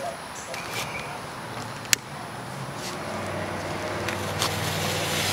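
A sharp click about two seconds in. From about three seconds, a hiss with a low rumble swells steadily as homemade rocket-candy fuel (potassium nitrate and sugar) is lit under an Xbox 360 motherboard and catches.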